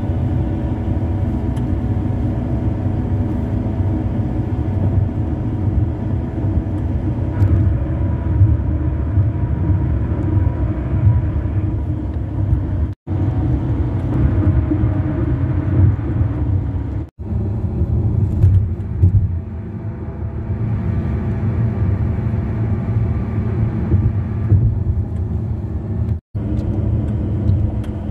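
Car tyres on grooved concrete highway and bridge pavement at speed, heard from inside the car: a steady rumble with a droning hum whose pitch and texture change as the pavement changes. The sound drops out three times for an instant, where separate recordings are spliced together.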